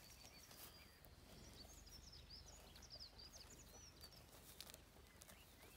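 Near silence with faint birdsong: a quick run of short, high chirps from about one and a half to four seconds in, over a low steady background hum.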